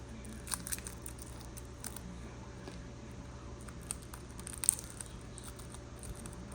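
Faint rustling and a few soft, scattered clicks of cardboard game cards being handled and flipped through, the sharpest click about two-thirds of the way in, over a low steady hum.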